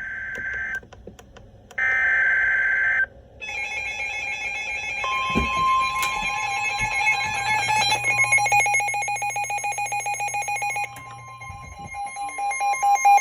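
NOAA Weather Radio alert signalling: two short buzzy SAME digital header bursts, then layered electronic alarm beeps and, from about 5 seconds in, a steady 1050 Hz warning alarm tone, which announces a new severe thunderstorm warning.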